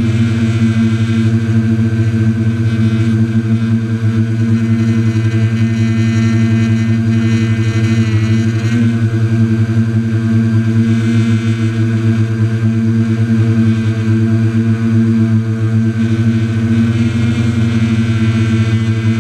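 Quadcopter's electric motors and propellers humming at a steady, even pitch while it hovers, heard from the camera carried on the drone.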